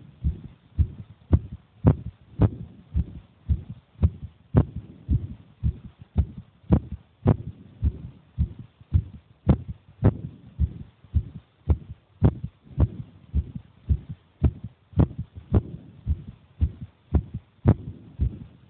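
A child's heartbeat: steady, regular beats at just under two a second, each a dull low thump.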